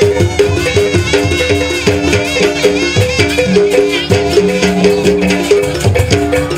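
Live Jaranan gamelan music: a slompret, a double-reed pipe, plays a wavering, ornamented high melody over a quick repeating figure on small kettle gongs and hand-drum strokes.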